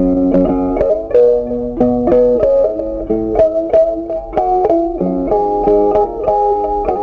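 Background music: a melody of plucked notes, several a second, over a steady low accompaniment.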